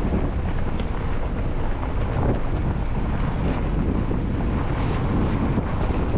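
A Jeep on the move: a steady low rumble of road and engine noise mixed with wind buffeting the microphone.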